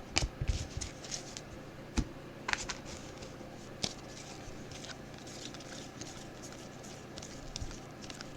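Trading cards and their packs being handled: scattered soft clicks, taps and rustles, a few sharper clicks in the first half.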